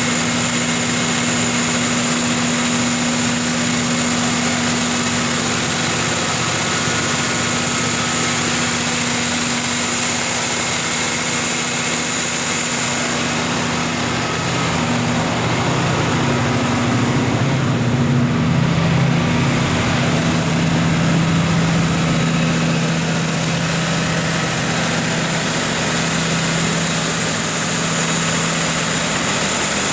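MTU 16V2000 V16 diesel engine of a Kohler 1000 kW generator set running at constant speed: a steady low hum with a thin high whine. The high whine dulls for a few seconds around the middle, then comes back.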